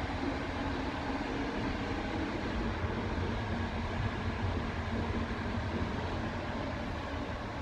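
Older-type passenger coach running along the track, heard from inside the compartment: a steady rolling rumble of wheels on rail.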